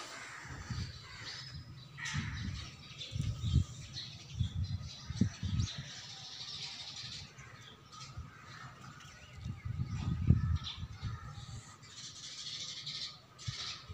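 Birds chirping in patchy bursts, with irregular low bumps and rumbles underneath.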